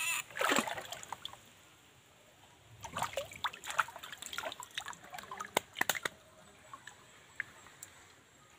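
Shallow stream water sloshing and splashing in short irregular bursts as a hand reaches and gropes in it, with quiet gaps in between.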